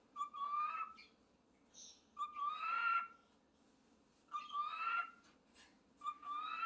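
Pet talking bird mimicking a cat's meow, four times, each call under a second long, rising in pitch at the start and then held.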